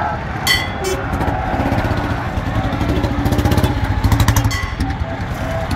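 Motorcycle engines running at low speed close by, one getting louder as it passes about two to four seconds in. A short, high-pitched ring sounds about half a second in.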